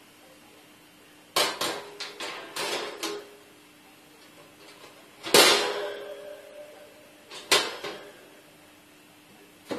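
Thin sheet-metal parts of a folding charcoal grill clanking as it is handled: a quick run of clicks and rattles about a second and a half in, then two louder clanks that ring briefly, near the middle and about two seconds later.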